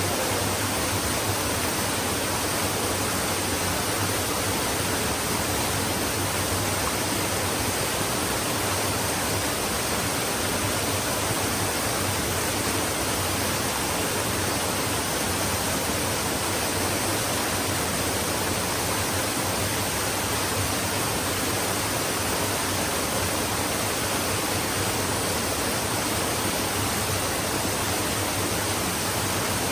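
Flowing stream, water rushing in a steady, even hiss with no breaks or changes.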